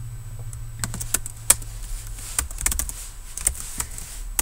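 Typing on a computer keyboard: irregular keystrokes in short clusters.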